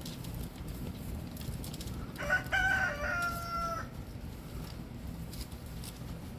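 A rooster crowing once, about two seconds in: a call of about a second and a half that ends on a long held note.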